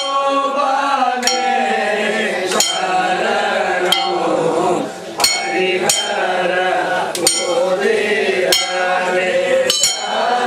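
Group of men chanting a devotional song together, with sharp, ringing metal clinks struck roughly every one to one and a half seconds, keeping time.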